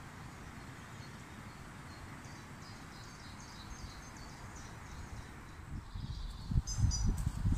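Small songbirds chirping in short repeated calls over a steady woodland background rush. Near the end come loud low thumps and rumbling.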